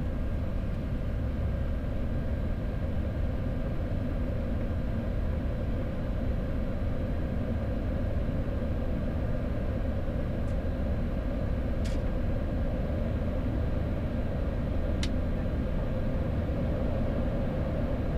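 Steady low rumble and hum inside a Boeing 737-800 cockpit while engine number 2 is being started on the stand, with no clear rise in pitch. Two faint clicks come through, about twelve and fifteen seconds in.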